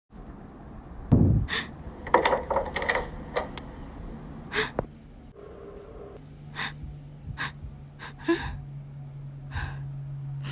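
A person gasping and breathing in short, sharp breaths, with a low thump about a second in and a steady low hum setting in about six seconds in.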